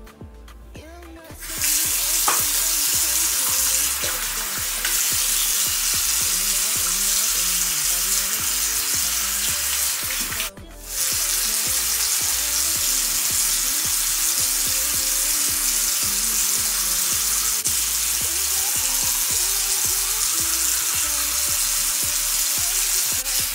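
Bathroom sink tap running, a steady hiss of water that starts about a second and a half in and breaks off briefly about ten and a half seconds in.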